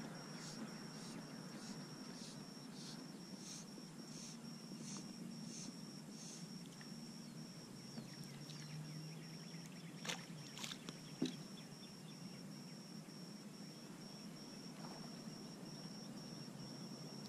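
A hooked bluegill splashing at the water's surface on a fly line, a few sharp splashes about ten and eleven seconds in. Under it lie a low hush of open water and a high thin steady tone that pulses about twice a second in the first six seconds.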